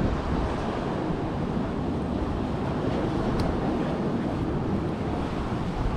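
Steady rush of sea surf, with wind buffeting the microphone.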